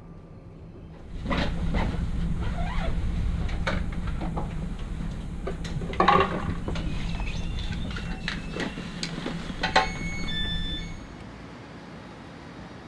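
Train rolling on the rails: low rumble with scattered clicks of the wheels, loud for about ten seconds after a sudden start about a second in, with brief high squeals near the end before it drops away.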